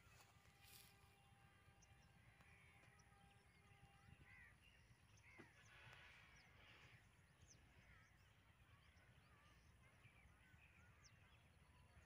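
Near silence, with faint scattered bird calls and chirps.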